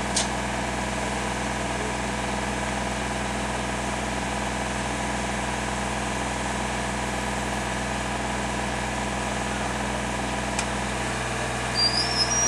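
Engine of a rail-mounted catenary maintenance gantry running steadily at idle, with a short high squeak near the end.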